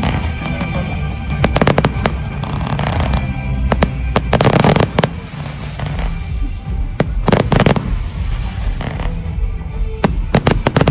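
Fireworks going off in volleys of sharp bangs and crackle about every three seconds, over loud music.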